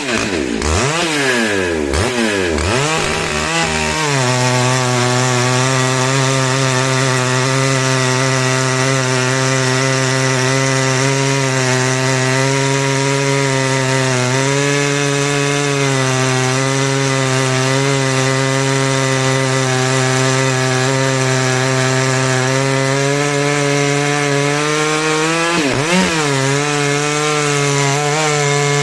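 Large-displacement two-stroke chainsaw cutting through hard dry beech. Its engine speed swings up and down for the first few seconds, then holds a steady pitch under load, with a brief dip and recovery near the end.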